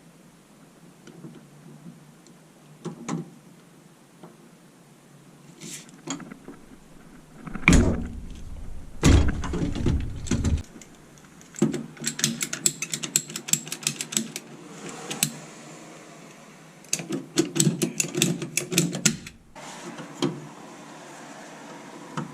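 Hands working plumbing fittings and tools: scattered knocks, a stretch of heavy bumping and handling about eight seconds in, then two runs of rapid mechanical clicking.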